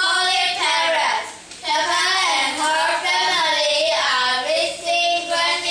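A child's high voice singing in short phrases with brief pauses between them.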